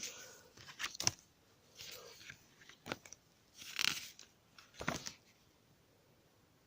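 Pages of a thick paper booklet being turned by hand: a series of short paper rustles and flaps, about one a second, that stop a little after five seconds in.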